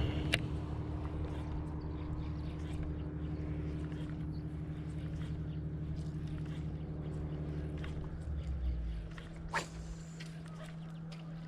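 Boat engine running steadily with a low hum, its deeper rumble easing off about nine seconds in, and a short sharp knock shortly after.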